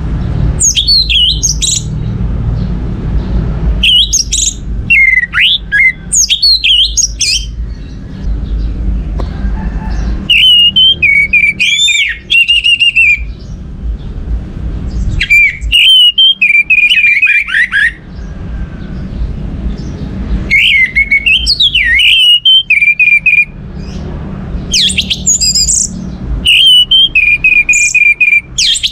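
Orange-headed thrush (anis merah) singing in about eight bursts of quick, varied whistled notes with short pauses between them. Several bursts end in a rapid run of repeated notes. A low rumble runs underneath, heavier in the first third.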